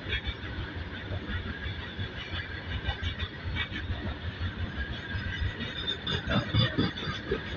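Freight train of open-top steel wagons rolling past: wheels rumbling and clattering over the rails with a steady high wheel squeal, the clatter growing heavier and louder about six seconds in.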